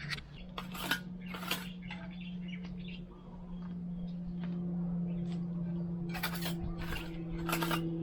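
A few sharp clinks and knocks, a cluster near the start and another near the end, over a steady low droning tone.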